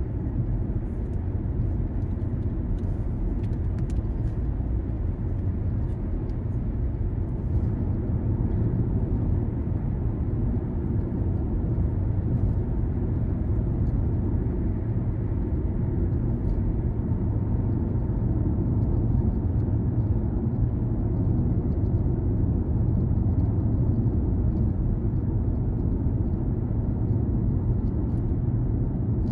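A car being driven: a steady low rumble of engine and road noise, growing a little louder about a third of the way in.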